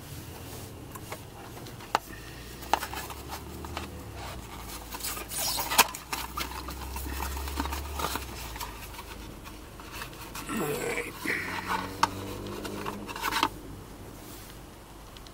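Gloved hands handling small engine parts and packaging: scattered clicks and taps with stretches of rustling and scraping, the sharpest click about six seconds in.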